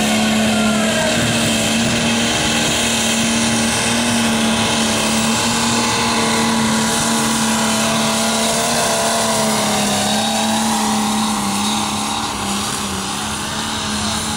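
Pulling tractor's engine running hard with a loud, steady note as it drags a weight-transfer sled down the track, easing off slightly near the end.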